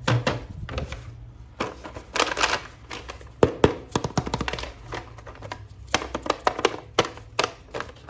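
Plastic toy packaging being handled and opened by hand: a quick series of sharp clicks and taps mixed with short bursts of crinkling and rustling.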